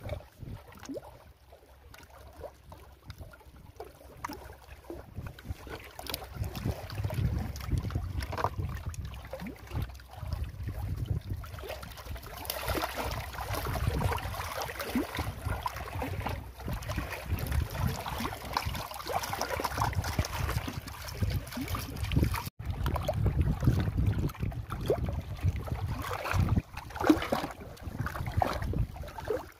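Wind rumbling and gusting on the microphone over water lapping against a rocky shore, with scattered small knocks and splashes.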